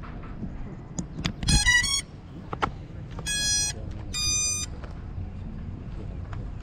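FPV quadcopter's motor controllers sounding their startup tones through the motors: a quick run of short tones, then two half-second beeps about a second apart. A few knocks from handling sound around them, over a steady low rumble.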